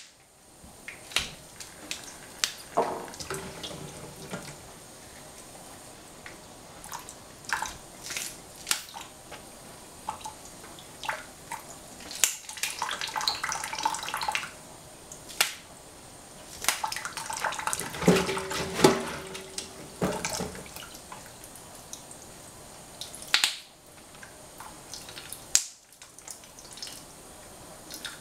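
Wet green bean pods handled in a small saucepan in a stainless steel sink: water splashing and dripping, with scattered clicks and taps against the metal. There are two longer stretches of splashing, one past the middle and one a few seconds later.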